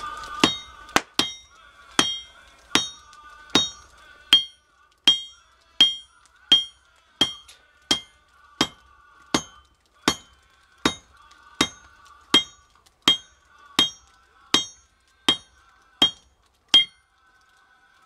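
Blacksmith's hand hammer striking a hot railroad spike on an anvil, one steady blow about every three-quarters of a second, each with a short metallic ring. The blows stop near the end.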